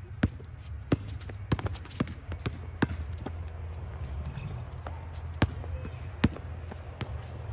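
Basketball bouncing on an outdoor hard court as it is dribbled: sharp, separate bounces at an uneven pace, over a steady low hum.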